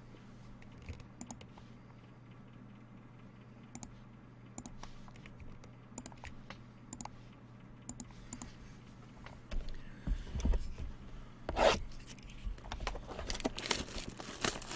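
Trading cards and their packaging being handled: scattered small clicks and scrapes, then louder rustling and tearing from about ten seconds in, over a faint steady hum.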